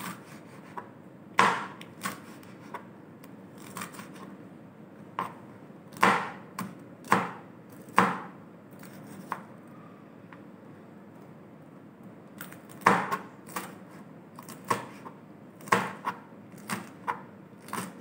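Kitchen knife slicing green chillies on a plastic cutting board: irregular sharp taps of the blade striking the board, with a pause of a few seconds about halfway through.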